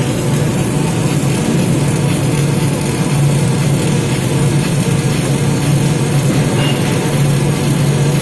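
Robot welding equipment running: a steady, loud machine hum with a constant low drone and an even noise over it, unchanging throughout.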